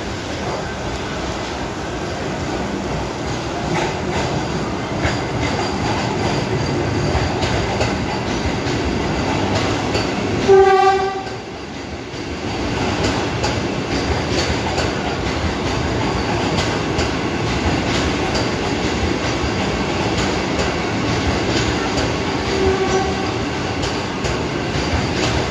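Vande Bharat Express electric train set rolling into the station with a steady running noise and light wheel clicks over the rails. A short, loud horn blast sounds about ten seconds in, and a fainter short horn note follows near the end.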